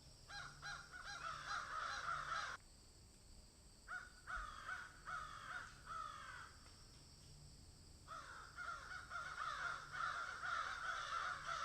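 Birds calling: three bouts of quick, repeated down-slurred calls, several a second, with short pauses between the bouts.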